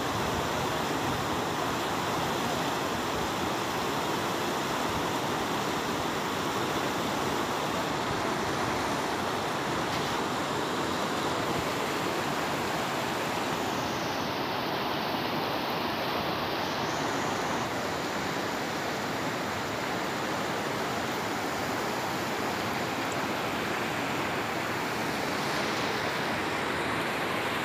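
Fast-flowing river rushing over rocks and rapids: a steady, even rush of water.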